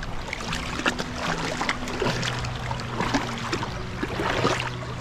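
Shallow seawater splashing and sloshing in irregular strokes as someone wades through ankle-deep water, over a low steady hum that shifts pitch a couple of times.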